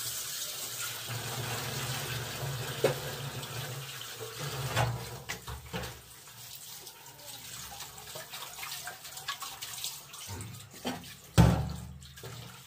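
Tap water running into a stainless steel kitchen sink while pieces of raw fish are rinsed and handled by hand, with a few knocks, the loudest near the end.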